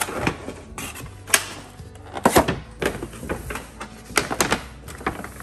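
Clear plastic clamshell takeout containers being handled and set down on a table: a series of sharp plastic clicks and crackles, irregular, the strongest a little over a second in and again around two and four seconds in.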